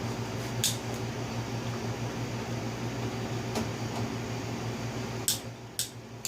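A steady low electric hum, like a fan or motor, runs throughout. It is broken by four short, sharp clicks: one about half a second in, one around the middle, and two close together near the end.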